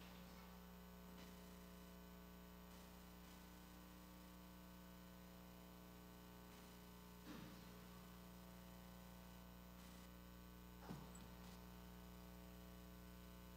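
Near silence: a steady electrical hum, broken twice by a faint brief knock, about seven and eleven seconds in.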